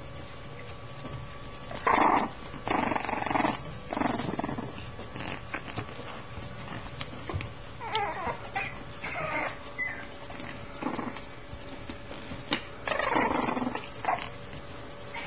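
French bulldog puppies making short, rough vocal sounds in irregular bursts, a few of them sliding up and down in pitch around the middle; the loudest come about two seconds in and near the end.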